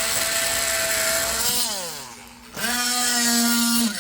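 Oscillating multi-tool with a saw blade cutting through a glued-in wooden dowel flush with the surface. The tool runs with a steady whine, winds down about a second and a half in, then starts up again and stops just before the end.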